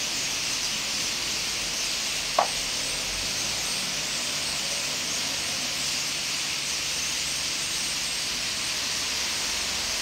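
Massed calls of a large bird flock, blending into a steady high hiss, with one short sharp chirp or click about two and a half seconds in.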